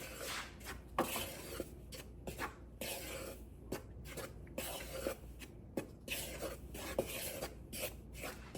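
Dry banana-bread ingredients (flour, spice, baking soda, baking powder) being stirred in a bowl: repeated soft scraping strokes with occasional light clicks of the utensil against the bowl.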